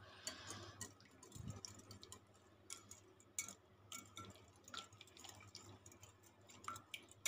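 Faint, irregular clicks of a small wire whisk tapping against a glass bowl while stirring thick yogurt.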